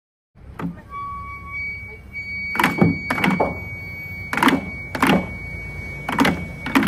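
Festival ohayashi practice: a bamboo transverse flute holds one high steady note while drumsticks knock hard on a wooden practice frame, about eight strikes in loose pairs from a couple of seconds in.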